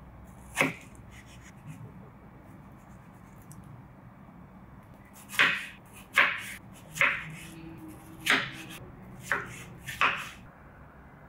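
Chef's knife cutting peeled tomatoes into chunks and knocking on a wooden cutting board. There is one knock about half a second in, then a run of about seven cuts in the second half, each under a second apart.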